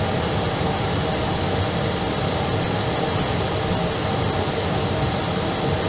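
Steady rushing noise of an airliner in flight, even and unbroken, with a faint hum running through it.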